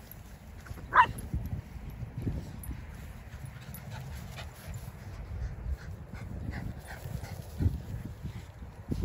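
A small dog gives one sharp yip about a second in, followed by a few fainter yips, over a steady low rumble.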